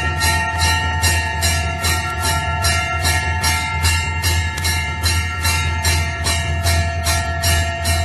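Temple bell rung steadily and fast, about three to four strikes a second, its ringing tones sustained between strokes over a low steady hum.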